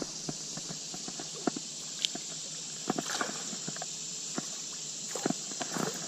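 Scattered light knocks and clicks of gear and paddle being handled against a plastic kayak, irregular and uneven, over a steady background hiss.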